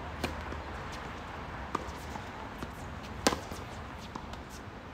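Tennis ball being struck by racquets and bouncing on a hard court during a doubles rally: a few sharp pops, the loudest just past three seconds in.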